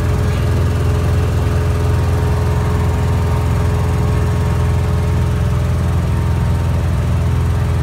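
Cessna 170B's six-cylinder Continental engine and propeller running steadily at climb power just after takeoff: a loud, even drone heard from inside the cabin.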